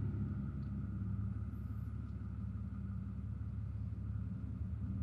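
Ram pickup truck engine idling steadily, a low hum heard from inside the cab.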